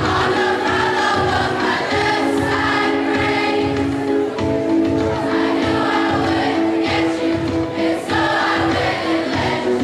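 Middle-school chorus singing a pop song together over accompaniment with a steady beat of about two pulses a second.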